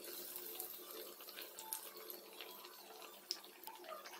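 Battered bread pakoras sizzling and crackling as they shallow-fry in hot oil, with one sharper pop about three seconds in.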